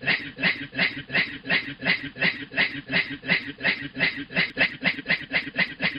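A man imitating a train's chugging with his voice: rapid, even, breathy pulses, about five a second.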